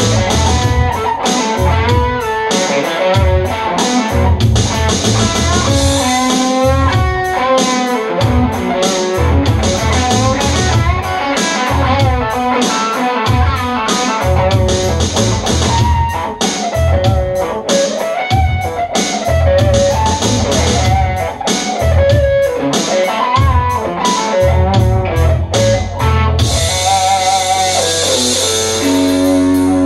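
Electric guitar lead playing over a steady rock beat of bass and drums, with no singing. About 26 seconds in, the music settles onto a long held final chord with a cymbal wash.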